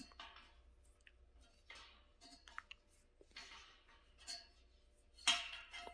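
Faint scattered clicks and scrapes of flat-pack desk parts and screws being handled, with a louder scrape a little after five seconds in.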